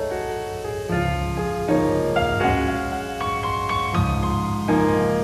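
Piano playing a slow piece, with sustained chords that change every second or so.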